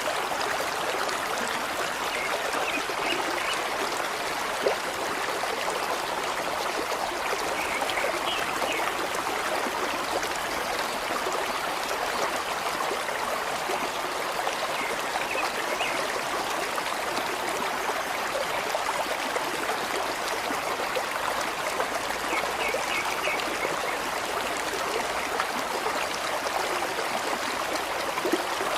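Steady, even rushing of flowing water, with a few faint short high chirps now and then.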